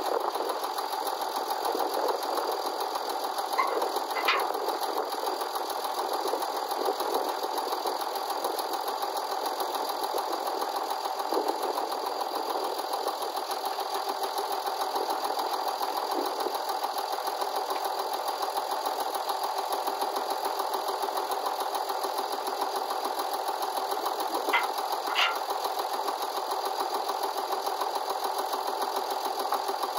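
Hesston 1880DT four-wheel-drive diesel tractor engine idling steadily, with a couple of brief metallic clicks about four seconds in and again late on.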